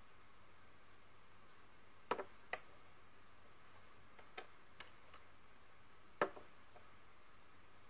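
Scattered light clicks and taps of makeup items being picked up and set down, about six in all with the sharpest one near the end, over faint room hiss.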